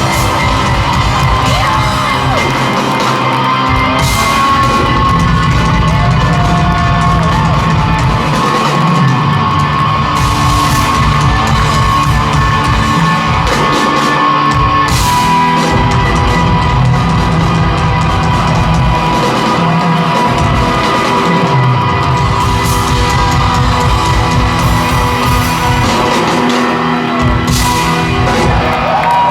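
A rock band playing live and loud, with heavy bass and drums under sustained guitar tones, and the crowd yelling along.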